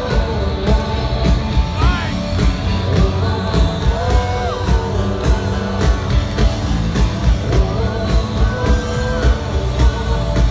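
Live rock band playing in an arena, heard from among the crowd: drums keeping a steady beat under singing.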